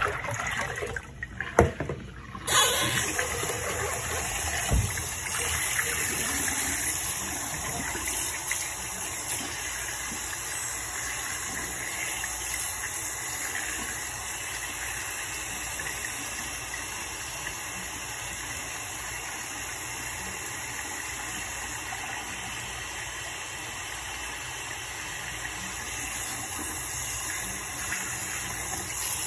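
Water splashing as a plastic bowl is emptied into a bathroom sink, then the sink faucet running steadily into the basin from about two seconds in.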